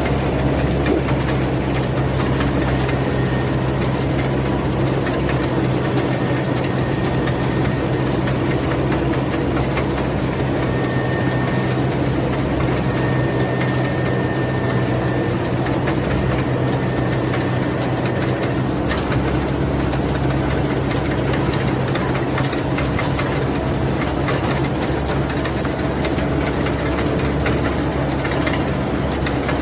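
Rice combine harvester's engine running steadily, a constant low machine drone at even speed.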